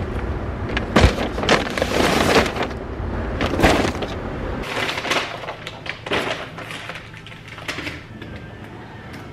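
Paper grocery bags rustling and crinkling as they are handled and set down, in repeated bursts that thin out over the last few seconds.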